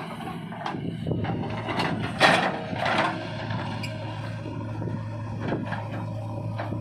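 Diesel engine of a JCB 3DX backhoe loader running steadily while it works, with several sharp knocks and clanks; the loudest comes a little over two seconds in.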